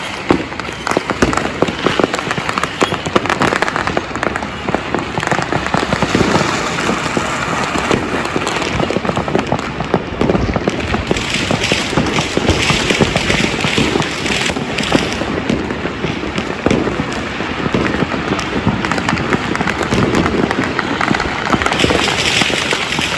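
Many fireworks and firecrackers going off at once in a dense, continuous crackle, with frequent sharp bangs and no pause.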